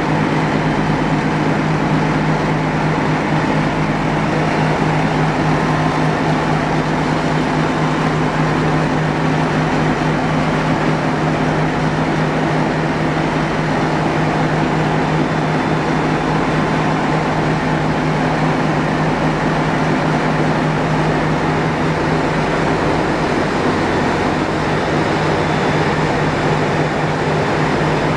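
Steady loud din of a motor ship's engine room: the diesel engines running at a constant speed under way, with a low steady hum.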